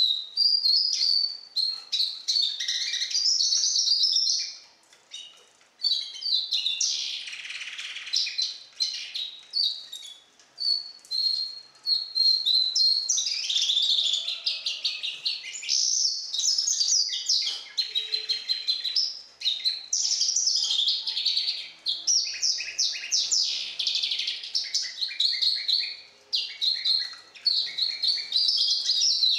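Four-month-old goldfinch × canary hybrid singing, a young bird learning nightingale song: long phrases of rapid chirps, trills and held whistled notes, broken by a few short pauses.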